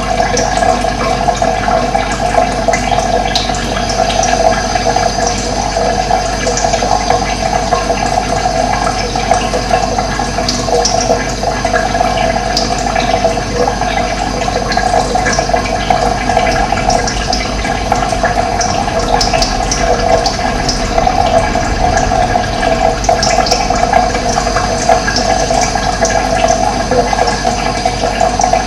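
Running water, a steady rushing flow, with short high bird chirps scattered through it.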